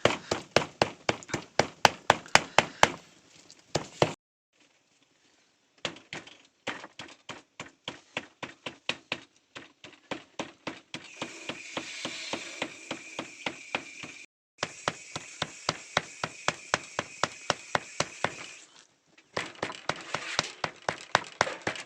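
Knife chopping raw pork on a cutting board to mince it coarsely, in fast repeated strokes of about three to four a second, with a few short pauses.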